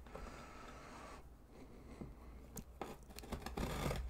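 A blade slicing through packing tape along the seam of a cardboard shipping box: faint scraping at first, then a run of scratchy cuts and sharp little clicks that grow louder near the end.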